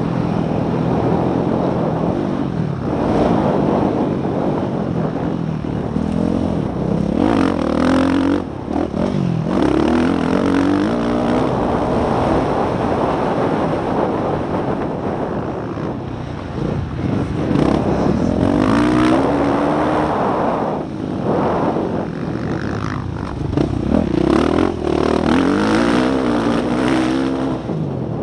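Motocross dirt bike's engine heard onboard, revving up and dropping again and again as the rider accelerates, shifts and backs off round the track, with rushing noise over the microphone.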